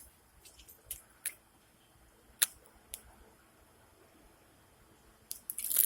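A few short, sharp clicks and taps of small hard objects being handled, spread over several seconds, with quiet room tone between them.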